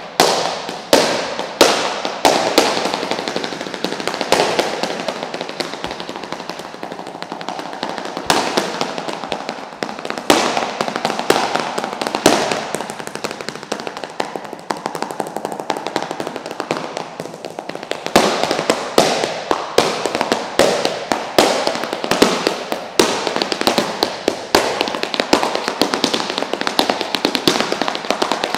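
Flamenco footwork (zapateado): heeled boots striking a wooden floor in fast, dense runs of heel and toe taps with harder accented stamps. The taps thin out somewhat in the middle and build up again about eighteen seconds in.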